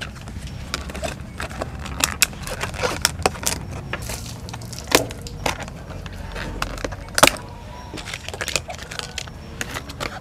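Clear plastic food containers being handled and shifted on a wooden table: a run of light, irregular clicks and taps, the loudest about seven seconds in.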